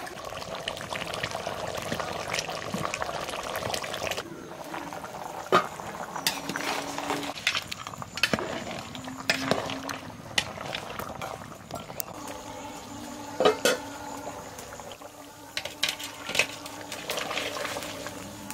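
Metal spatula stirring a metal pot of simmering beef trotter (cow-leg) nihari, with irregular sharp clinks of the spatula against the pot over a steady bubbling of the broth.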